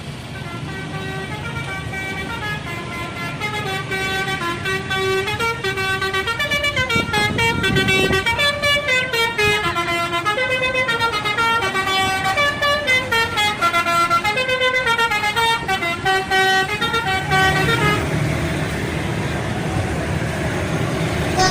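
Indonesian bus 'telolet' horn, a multi-tone musical air horn, playing a long, quick melody of stepped notes, several sounding together, which stops about eighteen seconds in, leaving bus engine and road noise.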